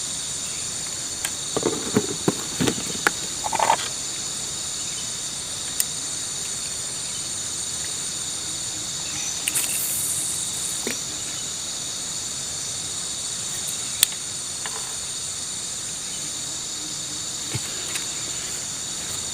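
Steady chorus of insects, several high shrill tones held unbroken throughout, with a few knocks and clicks in the first few seconds and one sharp click about fourteen seconds in.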